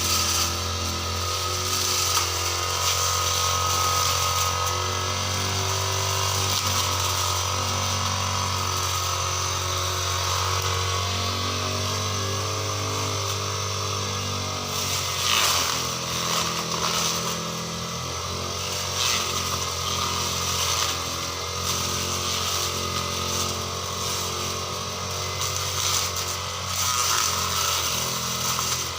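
Petrol brush cutter (grass trimmer) engine running continuously, its engine note shifting about halfway through.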